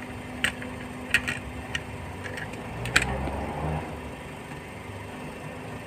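A steady low hum, with about six sharp clicks and taps in the first three seconds as a soldering iron, a solder spool and a circuit board are handled.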